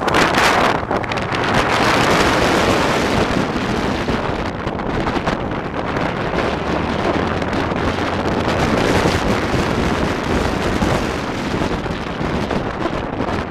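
Wind buffeting the microphone over a vehicle running, a rough, even rush with no clear engine note, loudest in the first couple of seconds.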